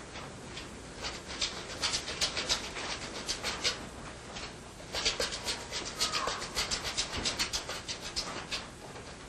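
Caged animals moving about in wire-mesh cages: a rapid series of short, scratchy clicks and rattles, with a brief whine about six seconds in.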